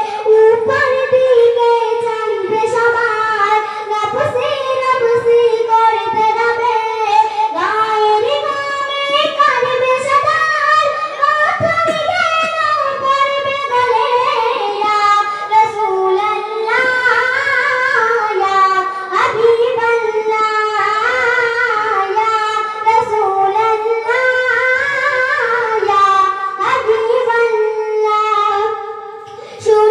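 A young girl singing a Bengali Islamic gojol unaccompanied into a microphone, with long held notes that waver and slide in pitch. She breaks off briefly just before the end.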